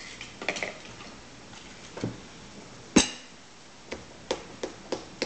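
Scattered sharp taps and knocks, one louder knock about three seconds in, then lighter taps coming faster near the end, about three a second.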